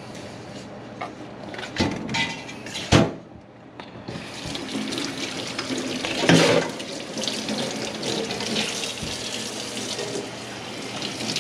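Kitchen faucet turned on about four seconds in, water running steadily into a stainless steel sink and splashing over hands being washed, loudest near six seconds. Before it, a few knocks from handling at the sink, the sharpest about three seconds in.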